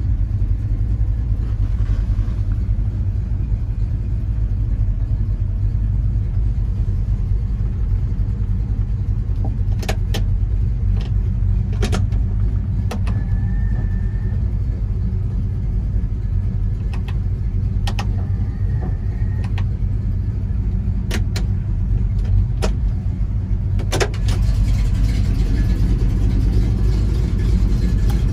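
1964 Chevrolet El Camino's small-block 350 V8 idling steadily through headers and dual exhaust, heard from inside the cab, a little louder for the last few seconds. Occasional light clicks sound over the idle.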